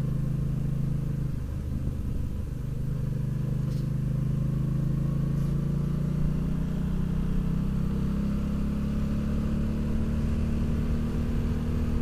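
Motorcycle engine running while riding, heard from the handlebars. It dips briefly about two seconds in, then its pitch rises slowly over the second half as the bike picks up speed.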